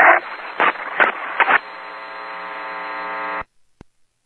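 Emergency Alert System broadcast on FM radio: the tail of the synthesized voice reading the phone number, then a steady buzz for about two seconds that cuts off suddenly, leaving the channel quiet.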